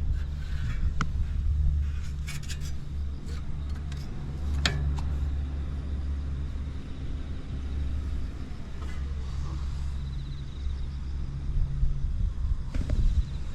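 Honda Motra's 49 cc four-stroke single-cylinder engine idling steadily and quietly, with no abnormal noise, which marks a healthy engine after long storage. A few light clicks sound over it, and it gets louder near the end.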